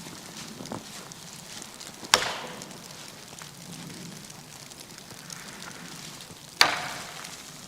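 Two sharp knocks about four and a half seconds apart, each ringing out briefly, over a steady background hiss with faint small ticks.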